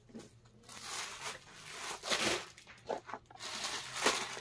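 Rustling of georgette suit fabric being gathered and folded away, mixed with the crinkle of plastic-wrapped suit packets being handled. It comes in uneven swells, loudest about two seconds in and again near the end.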